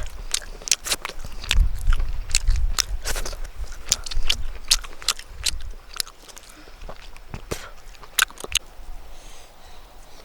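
A person eating, a run of crisp bites and chewing crunches heard as sharp, irregular clicks that grow sparser in the second half, with a low rumble under the first few seconds.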